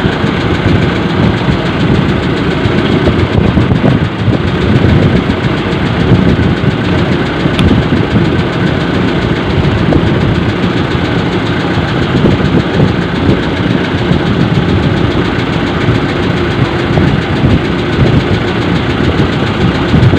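A fishing boat's engine running steadily, a loud, even chugging rumble.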